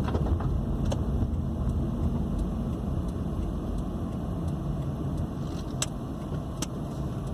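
Car driving, a steady low engine and road noise heard from inside the cabin, with a few faint clicks.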